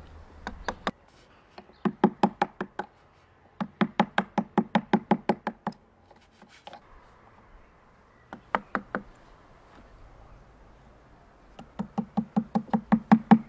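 Rapid knocking on a wooden board, about seven or eight knocks a second, each with the same low pitch. It comes in runs: a few single knocks at first, a run of about a second, a longer run of about two seconds, four knocks, then another two-second run near the end.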